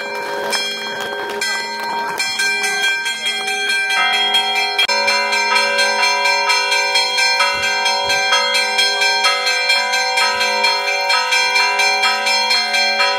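Church bells pealing, several bells of different pitches ringing over one another. About five seconds in the strokes come quicker and more regularly, roughly three a second.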